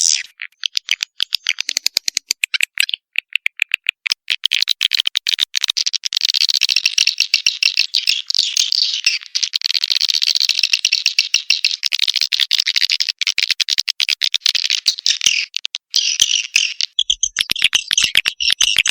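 Swiftlet lure call: a dense, high-pitched chattering twitter made of very rapid clicks, with a short break near the end before it resumes. This is the kind of call recording played to draw swiftlets into a nesting house.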